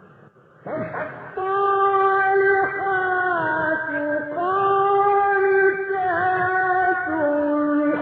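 A male Quran reciter chanting in the melodic mujawwad style. After a brief hush, his voice comes in less than a second in and holds long drawn-out notes that bend slowly in pitch.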